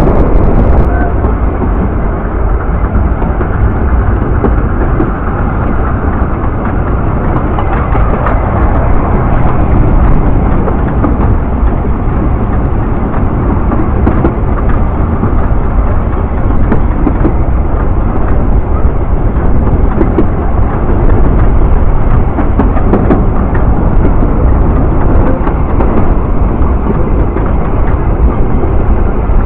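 Narrow-gauge steam train running, heard from an open coach window: a steady, loud rumble of the carriages on the track with wind on the microphone.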